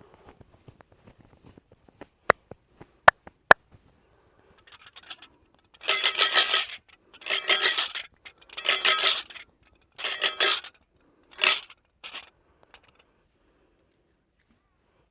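Percussive hand massage: three sharp cracks, then five bursts of rapid hand tapping on the head and back, each about a second long and coming every second and a half or so.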